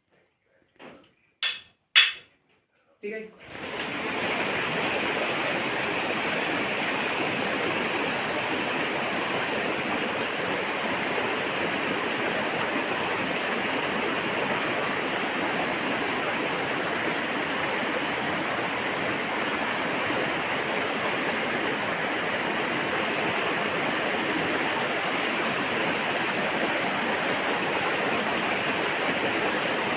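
A few short, sharp sounds, then from about three seconds in a steady, even rushing noise like running water or rain.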